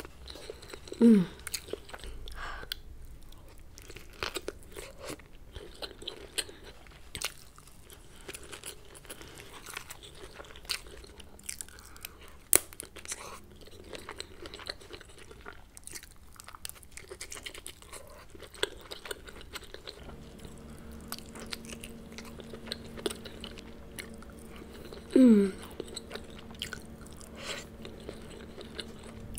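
Close-up wet eating sounds of a person chewing saucy king crab and lobster in creamy alfredo sauce: dense smacking and sticky mouth clicks. Twice, about a second in and again near the end, a loud short hum that slides down in pitch.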